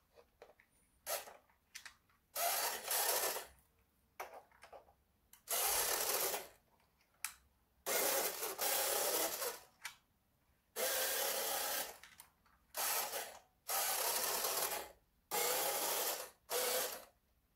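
Small electric motor and gearing of a 1970s Gama toy forklift whirring in repeated bursts of about a second each, about eight of them, with short blips between and silent gaps, as the toy is run in short spurts.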